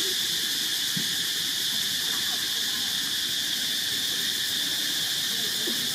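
Steady high-pitched insect chorus, an even shrill buzz that holds at one level throughout.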